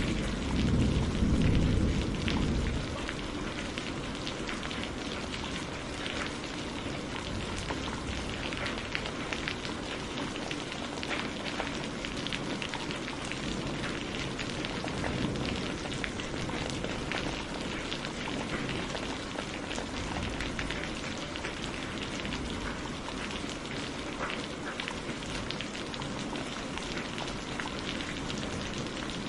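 Wood campfire crackling steadily with many small, sharp pops and ticks over a soft hiss. A louder low rumble fills the first two seconds or so, then drops away.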